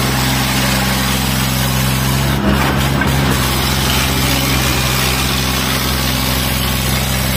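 Sonalika and Eicher tractor diesel engines running hard at a steady, unchanging pitch under heavy load, straining against each other. A single brief knock comes about two and a half seconds in.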